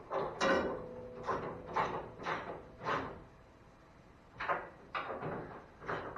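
A string of short, uneven knocks and clunks, about a dozen in all, with a brief creak about half a second in.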